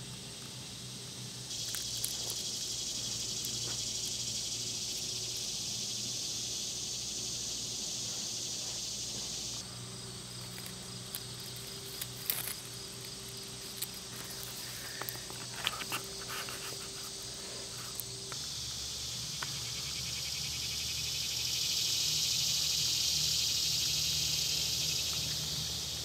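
Steady, high-pitched chorus of insects such as crickets, with a few faint clicks in the middle; its pitch and loudness change abruptly a few times.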